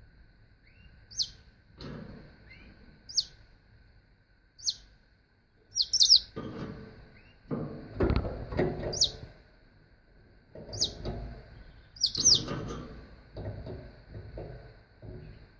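Canary giving short, sharp, high chirps that fall in pitch, one every second or two, with a double chirp twice. Low, muffled noise comes and goes between the chirps.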